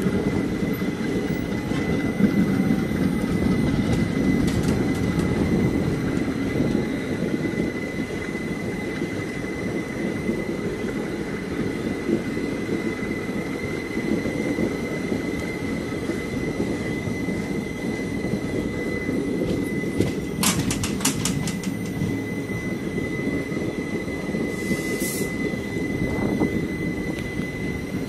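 Moving passenger train heard from an open coach door: a steady rumble of wheels on the track, with a thin, steady high squeal over it. A quick run of sharp clicks comes about twenty seconds in.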